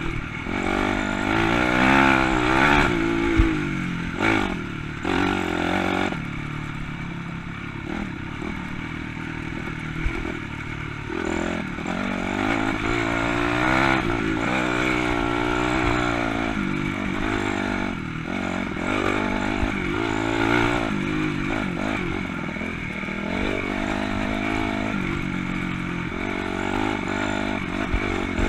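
Honda CRF250 dirt bike's single-cylinder four-stroke engine riding a trail, its revs rising and falling over and over with the throttle, with scattered knocks and clatter.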